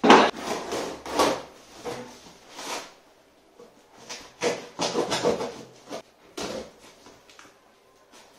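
A plastic chair set down on a concrete floor with a knock, then a vegetable knife slitting the packing tape on a cardboard box, a run of scraping, ripping strokes that thicken around the middle.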